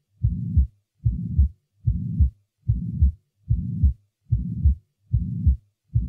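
Auscultation recording of a pansystolic (holosystolic) heart murmur at about 75 beats a minute. Each beat is a sharp first heart sound, then a murmur of even intensity filling all of systole, then a sharp second heart sound, with silence in diastole. The murmur is caused by backward blood flow and is typical of mitral regurgitation, tricuspid regurgitation or ventricular septal defect.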